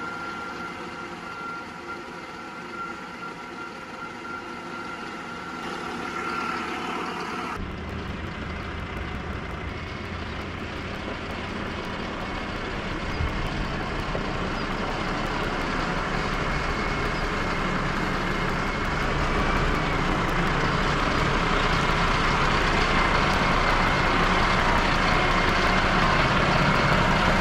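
A vehicle engine running and growing steadily louder, joined by a steady high whine over the second half. About seven seconds in, a quieter stretch of steady hum ends abruptly.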